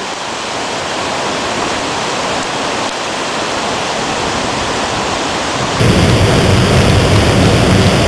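Waterfall, a steady rush of falling water. About six seconds in, from close beneath the falls, it turns much louder, with a heavy deep rumble.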